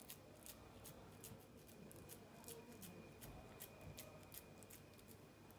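Faint, irregular sticky clicks of hands squeezing and shaping raw minced lamb along a wooden skewer, a few a second, over quiet room tone.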